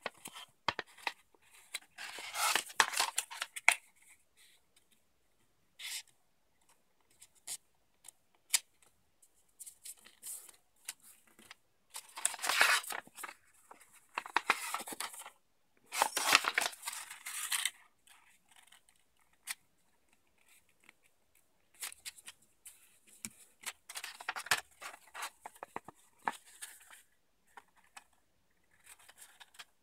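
A sheet of printed paper being folded and creased by hand: irregular bursts of crinkling and rustling as fingers press and run along the folds, with short pauses between.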